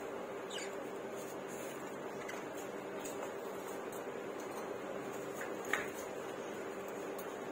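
Budgerigars in a cage giving a few faint, short high chirps, the sharpest just before six seconds in, over a steady background hum.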